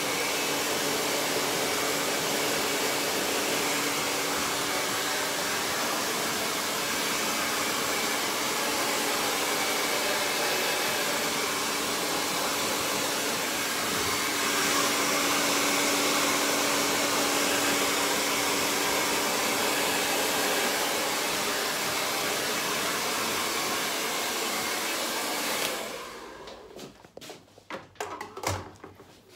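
Handheld hair dryer blowing steadily during a blow dry of short hair, then switched off near the end. A few light knocks and clicks follow.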